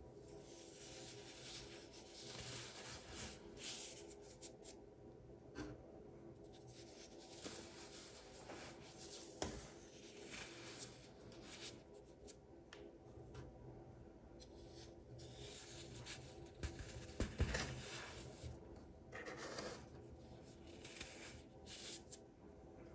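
Hands crushing molded shapes of black baking soda, a soft, irregular gritty crunching and rustle of powder crumbling through the fingers, with two sharper crunches, about a third of the way in and again past the middle.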